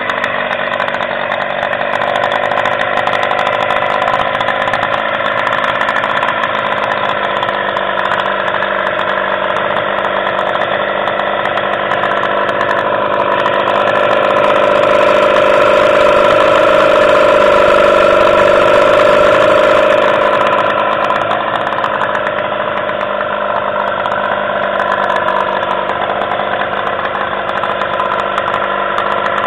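Mariner 15 two-stroke outboard motor idling steadily with its cowling off. It gets somewhat louder for several seconds midway, then settles back.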